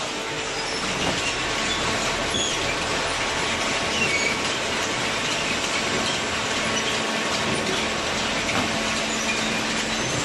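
Vertical cardboard baler running: a steady mechanical noise with faint steady hums and scattered small high squeaks.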